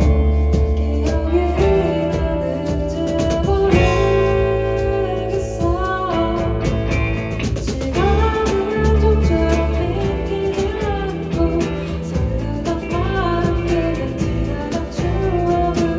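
A band playing a song live in an acoustic arrangement: guitar and a steady bass line under a singing voice.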